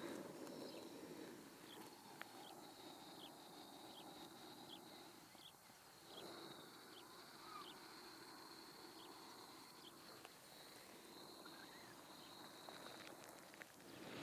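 Near silence: faint background hiss with a thin steady high-pitched whine and soft ticks about twice a second.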